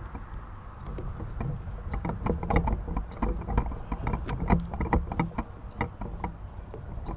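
Irregular knocks and clicks of fishing gear handled against a plastic kayak, over a steady low rumble of wind or water on the microphone.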